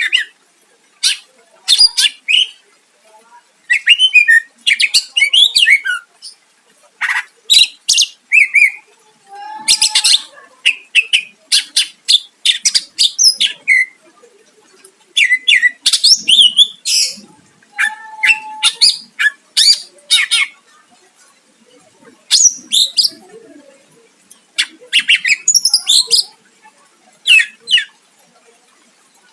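Greater green leafbird (cucak ijo) singing hard: phrase after phrase of sharp, rapidly changing chirps, whistles and harsh notes, each burst lasting about a second and separated by short pauses.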